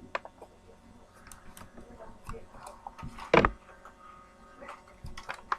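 Hands handling a plastic toy package: scattered small clicks and taps, with one louder knock about three and a half seconds in.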